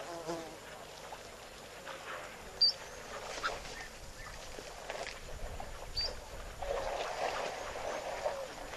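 African elephants sloshing and splashing in mud and shallow water, busiest in the last couple of seconds, with a bird's short high call twice.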